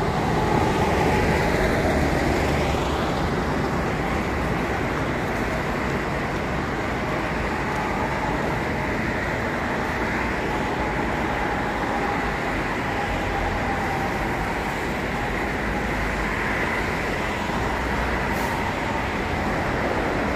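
Steady road traffic on a wide multi-lane road: cars and buses passing, with continuous tyre and engine noise on a road wet from recent rain.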